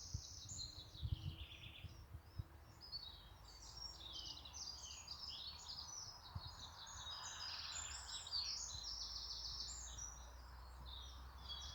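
Several birds chirping and singing at once, high-pitched and overlapping without pause, over a faint low rumble.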